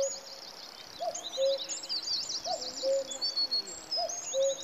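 Common cuckoo calling its two-note "cuck-oo" over and over, about one call every second and a half, the second note lower. Small songbirds sing fast, high trills and chirps throughout.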